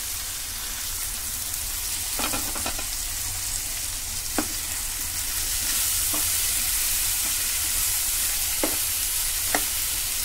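Chopped onion and tomato sizzling in hot oil in a kadhai, with a steady hiss, while a spatula stirs them and knocks against the pan about five times.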